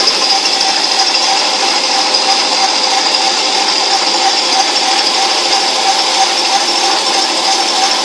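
Metal lathe running steadily, turning a 1 1/4 inch steel pipe: an even machining noise with a steady high whine.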